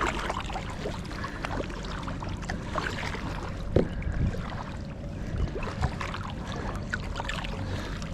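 Kayak paddling: paddle strokes in the water with trickling drips, and a few short knocks.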